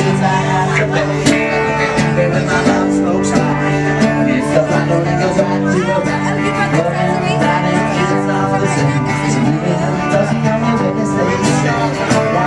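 A live band playing country-style music with guitar.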